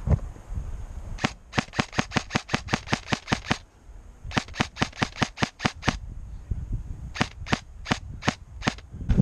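Airsoft gun firing three strings of sharp shots: two quick strings of about six shots a second, then a slower string of about half a dozen shots near the end. A dull thump comes at the very start.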